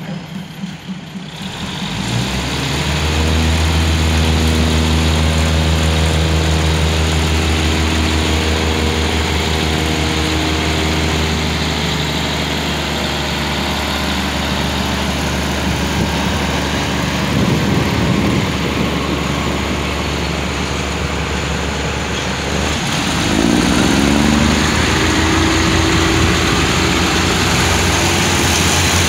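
Diesel railcar train's underfloor engines throttling up about two seconds in and running steadily with a deep hum as the cars move past. Near the end another car's engine rises in pitch as it goes by.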